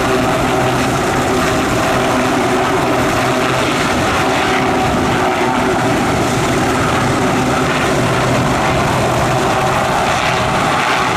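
Westland Sea King Mk5 helicopter hovering low, its twin Rolls-Royce Gnome turboshaft engines and main and tail rotors running at a steady, even level with a constant hum.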